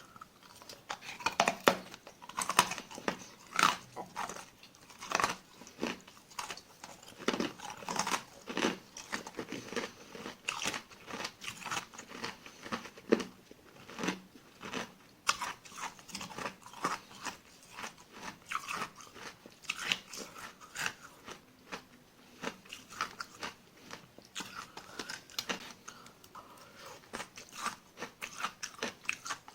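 Close-miked ASMR crunching of small tartary buckwheat ice granules being bitten and chewed, a steady run of irregular sharp cracks and crackles.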